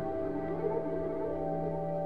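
Ambient background music score: sustained, held tones with no beat.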